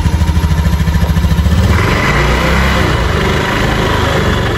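Honda Beat ESP scooter engine idling, then throttled about two seconds in, bringing up a rough, harsh noise from the CVT and final drive (gardan) that holds to the end. The noise appears only under throttle, and the mechanic suspects a worn bearing, the pulley or the final-drive shaft.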